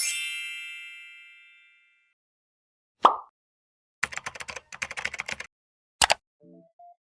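A string of edited sound effects against dead silence: a bright ringing chime that dies away over about two seconds, a short pop, a quick run of clicks, a sharp click, then a few short beeps rising in pitch near the end.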